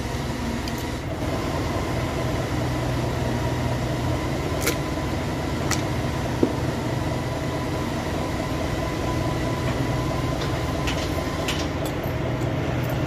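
Steady machinery hum of a running engine or motor, with a few sharp metallic clinks from a chain hoist's chain and the metal transmission casing it holds, one about halfway in and a small cluster near the end.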